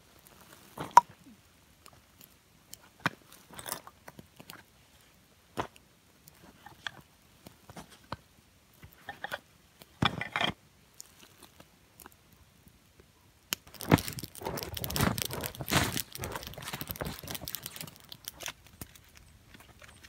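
Small camping items, glass spice jars among them, set down one at a time on a wool blanket: scattered soft knocks and clinks with pauses between. About two-thirds of the way in, several seconds of steady crunching and rustling take over and are the loudest part.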